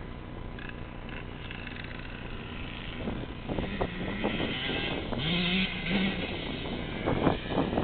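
Dirt bike engine out of sight, getting louder from about three seconds in, its pitch rising and falling as the throttle is worked.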